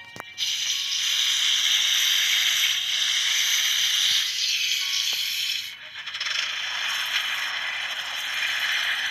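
Plastic toys rattling: a sharp click, then a dense, steady rattle that dips briefly about six seconds in and carries on.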